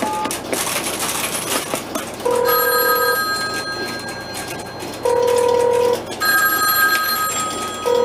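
Telephone ringing in short bursts of steady tone, each about a second long, on a call set up through a 1971 Fujitsu crossbar PBX; a rush of clicking noise comes before the first ring.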